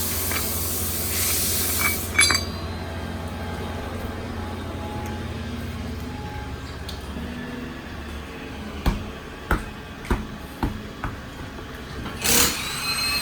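Shop work on a car's wheels: a hiss of compressed air that ends with a sharp metal clink, then a run of five or six separate metal knocks about half a second apart, and another short air hiss near the end, over a steady low hum.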